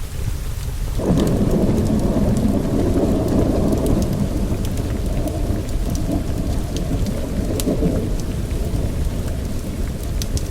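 Steady rain with a low rumble of thunder that rolls in about a second in and slowly eases off over several seconds, with scattered sharp crackles on top.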